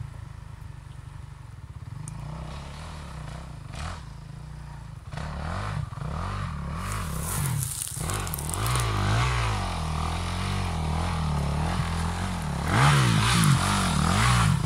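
Enduro dirt bike climbing a dirt trail toward the listener, its engine revving up and down as the rider works the throttle. A low steady engine hum for the first five seconds, then louder and closer, loudest near the end.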